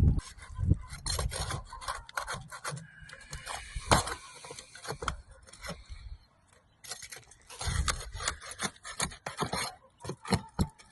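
Irregular scraping and rubbing, a run of short uneven strokes and clicks with brief pauses, the longest about six seconds in.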